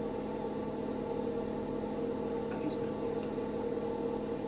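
A steady machine hum made of several constant tones over a low hiss, unchanging throughout, with a few faint ticks.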